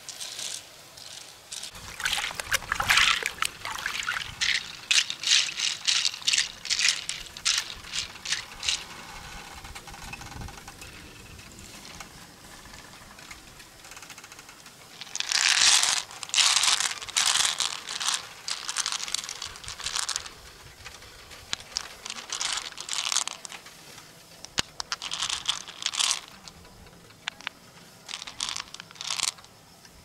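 Loose pearls rattling and clicking against each other and the inside of an opened freshwater mussel shell as fingers stir through them. The clicking comes in several bursts of quick clicks with quieter gaps between.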